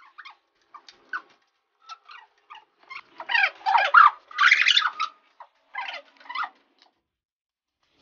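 Noodles being slurped and eaten in a hurry. Short wet slurps and mouth clicks are scattered at first. A run of louder, longer slurps comes about three to five seconds in, and a few shorter ones follow.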